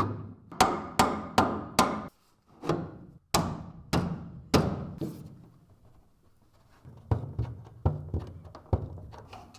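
Hammer blows on steel car-body metal, each with a short metallic ring: about ten hard strikes in the first five seconds, then a pause and lighter knocks with some scraping.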